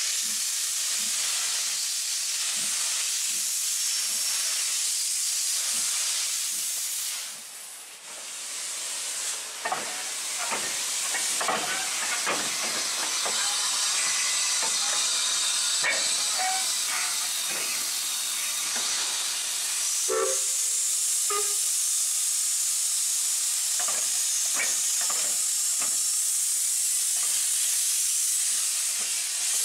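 Loud, steady steam hiss from standing industrial steam locomotives Bagnall No.401 and RSH NCB No.49, with occasional short knocks. It drops away briefly about a quarter of the way through, then returns.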